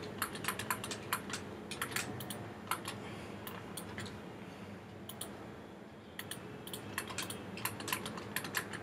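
Computer keyboard keystrokes: quick flurries of sharp clicks, thinning to a lull in the middle before a second flurry.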